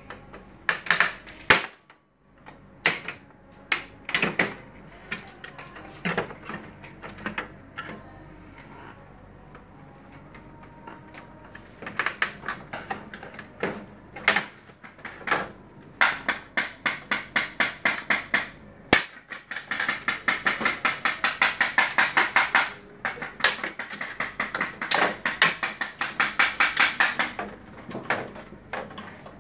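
Hand work on a Kyocera laser printer's scanner unit: scattered sharp clicks and knocks of tools and plastic or metal parts, then long runs of rapid, evenly spaced clicking, several per second, in the second half.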